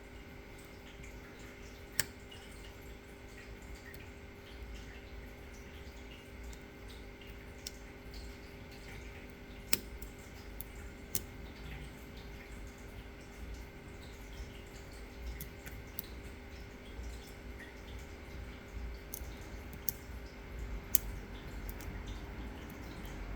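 Lock picks working in an ASSA D12 pin-tumbler lock cylinder: sparse small metallic clicks and ticks, a few sharper than the rest, over a steady hum.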